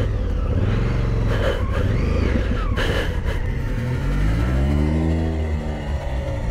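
BMW R1200 GS Adventure's boxer-twin engine running, then revving up and back down about four seconds in as its rear wheel spins in dry grass and dirt during a tight turn.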